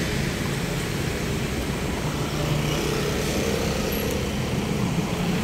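Steady urban road traffic noise: the continuous rumble of passing vehicle engines and tyres.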